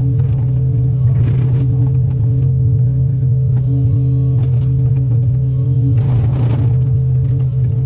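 Excavator's diesel engine running at a steady drone, with short bursts of noise about a second in and again near six seconds as the machine works.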